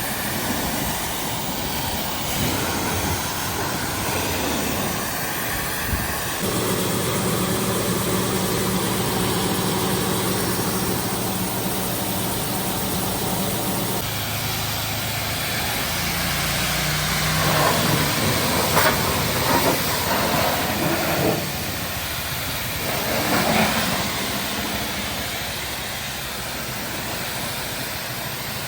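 Engine of farm machinery running steadily; the engine note changes at a couple of points.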